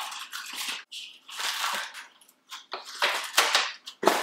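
Wrapped sweets and snacks rustling and rattling as they are scooped and tipped between plastic bowls, in irregular bursts, with a few sharp clicks about three seconds in.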